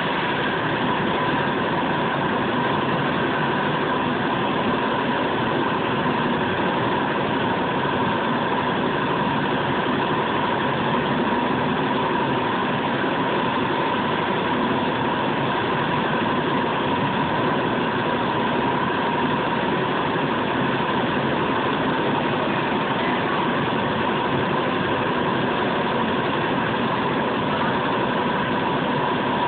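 Blower-fed burner of a freshly fired crucible furnace running steadily: an even rushing noise with a constant tone on top that does not change.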